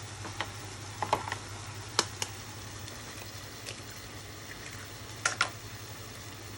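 Scattered sharp clicks and taps of a utensil or eggshell against a cooking pan, in small groups, over the low, faint steady sound of the tomato mixture simmering as eggs are added one by one.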